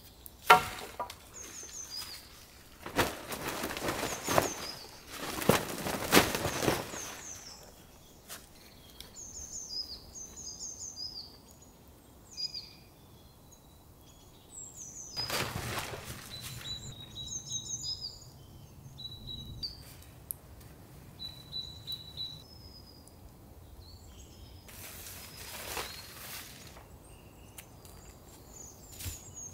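Small birds chirping and calling throughout, over bursts of rustling and handling noise from a tarp shelter being taken down. The loudest bursts come in the first seven seconds, with shorter ones about halfway and near the end.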